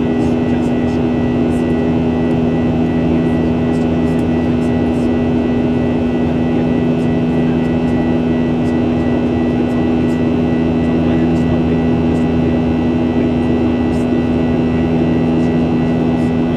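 Boeing 737-800's CFM56-7B turbofan engines running steadily in the climb, heard from inside the cabin: a constant hum of several low tones over a rush of air.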